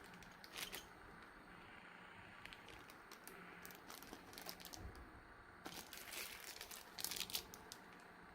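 Packaging crinkling and rustling in short, irregular bursts as a boxed keyboard is unpacked, loudest about six to seven and a half seconds in.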